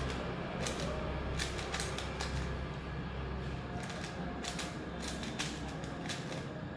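3x3 Rubik's cube being turned by hand: quick, irregular plastic clicks of its layers snapping round, coming in short runs, over a steady low hum.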